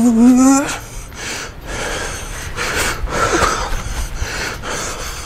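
A man's voice held on one tone that wobbles rapidly as his whole body shakes, breaking off under a second in, then hard, noisy breaths in quick pulses. This is breathing from the exertion of vigorous whole-body shaking.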